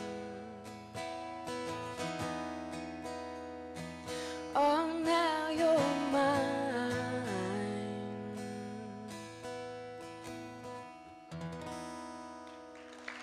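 Solo acoustic guitar picking and strumming the song's closing bars, with a wordless sung line wavering over it in the middle. The last chord fades out and applause starts right at the end.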